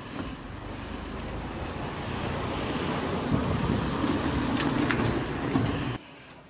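Motor vehicle engine running nearby, its rumble growing louder over several seconds and cutting off suddenly about six seconds in.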